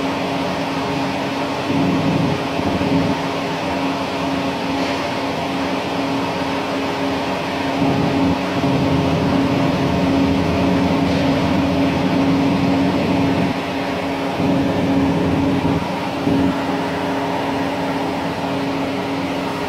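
Steady mechanical hum with several fixed tones, heard underwater through the camera, over an uneven low rumble of water movement.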